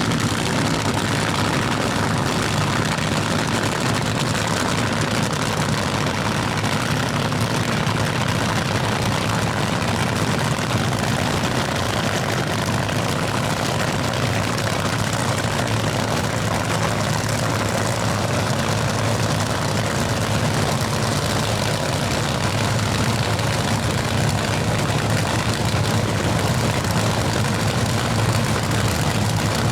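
Two supercharged nitromethane drag racing engines running steadily, a dense, loud rumble.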